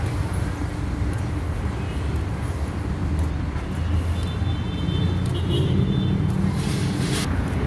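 Steady low rumble of road traffic, with a faint high whine for a second or so about halfway through.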